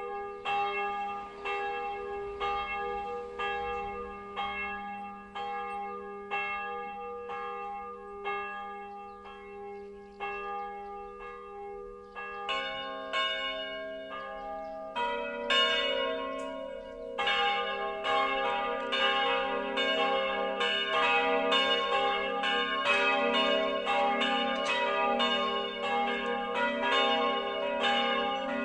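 Church bells of St. Martin, Fraham, cast by Karl Czudnochowsky of Erding in 1950 and tuned to g', b' and c'', swinging and ringing. One bell strikes steadily at first. A second bell joins about twelve seconds in and a third a few seconds later, building to the full three-bell peal.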